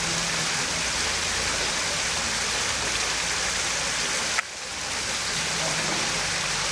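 Water from a small artificial rock waterfall fountain cascading over stone ledges into its pool: a steady rushing splash. About four and a half seconds in there is a brief click and a short drop in level, and then the rush resumes.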